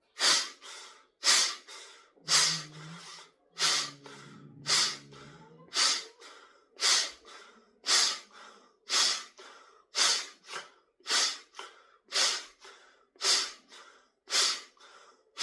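Forceful exhalations through the nose, about one a second, each a short sharp hiss, with breaths taken in through the mouth between them. This is the drying stage after jal neti, a saltwater nasal rinse: the breaths blow the remaining water out of the nasal passages.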